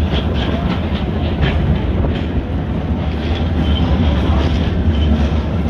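Streetcar running along its tracks, heard from on board: a steady low rumble of steel wheels on rail, with a few light clicks in the first couple of seconds.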